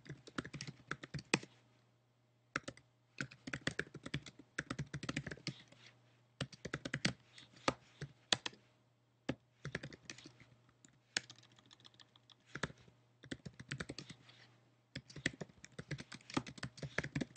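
Typing on a computer keyboard: quick runs of keystrokes broken by short pauses, over a faint steady low hum.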